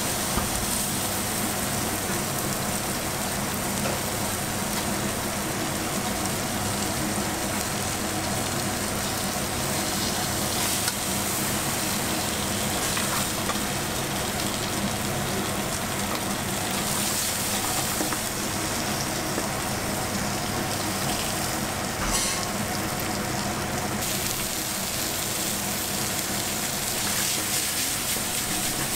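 Slabs of beef searing in a hot frying pan with a sprig of rosemary: a steady sizzle with a few faint crackles.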